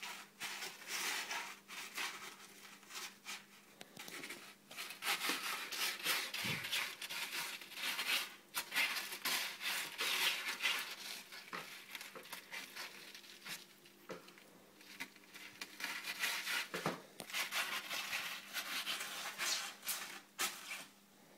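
Irregular rustling and scratching with scattered clicks, as small kittens clamber about on a knitted blanket in a plastic basket.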